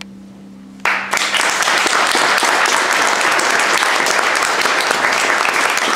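The final chord of a harp duet rings and dies away. About a second in, an audience starts applauding and keeps on steadily.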